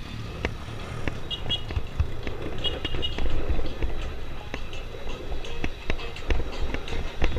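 Motorcycle ridden slowly in traffic, its engine a low rumble under wind noise on the microphone, with scattered knocks and a few short high chirps about a second and three seconds in.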